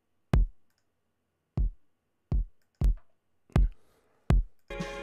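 A soloed kick drum track plays back: six separate punchy kick hits, each with a sharp click and deep low end that decays quickly. The kick has been shaped with an envelope shaper and lightly clipped. About four and a half seconds in, a full, dense music mix comes in.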